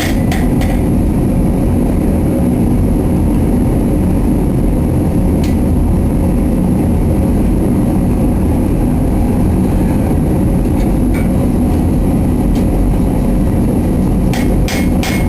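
A few last hammer blows on hot steel in the first second, then the steady low roar of a forge running, with an occasional light clink. Hammering starts again near the end, at a few blows a second.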